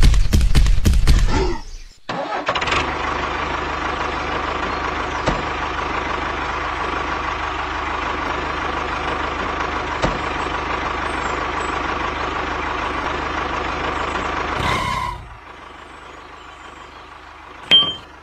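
Tractor engine running steadily with a held mid-pitched hum, cutting off about fifteen seconds in. It is preceded by about a second and a half of rapid loud knocking, and a short high beep comes near the end.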